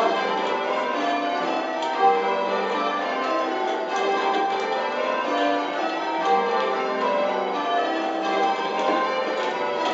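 Eight church bells rung in changes, a touch of Spliced Surprise Major: a steady, continuous stream of bell strokes, one after another, in a constantly shifting order.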